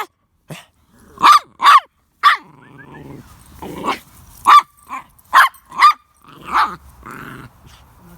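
Pet dog barking, about ten short sharp barks in quick pairs and runs, with lower growls between some of them.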